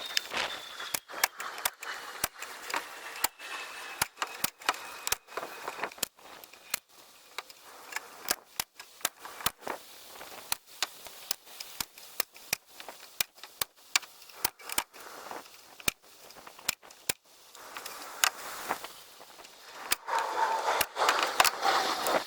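Repeated sharp clacks of a staple gun fastening half-inch hardware cloth to the wooden nest box bottoms, irregular, about two a second. A rushing noise rises near the end.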